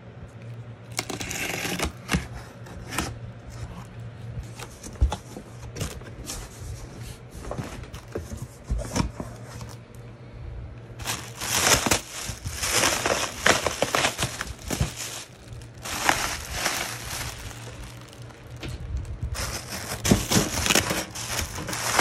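A cardboard box being opened, then plastic packing wrap crinkling and rustling in irregular bursts as it is pulled away by hand. A steady low hum runs underneath.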